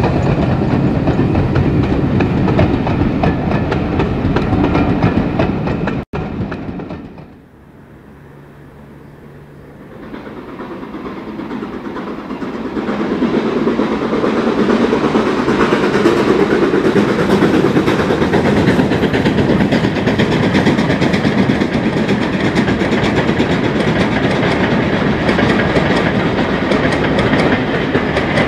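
Steam-hauled passenger train running past close by, the coaches' wheels clattering over the rail joints, cut off sharply about six seconds in. After a short lull a second steam train is heard approaching, its sound building over a few seconds and staying loud as it runs by.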